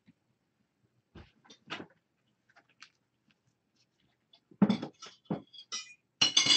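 Kittens playing on a hard floor: scattered light taps and scuffles, then a cluster of louder knocks and rustles in the last two seconds.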